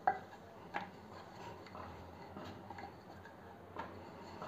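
Wooden rolling pin rolling out chapati dough on a round board: faint rolling with a few light clicks of the pin against the board, the sharpest right at the start.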